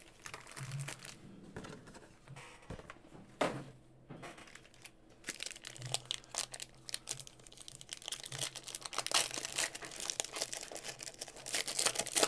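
Foil wrappers of Panini Prizm trading-card packs crinkling in the hands, in irregular crackles that grow busier in the second half, as a pack is handled and torn open.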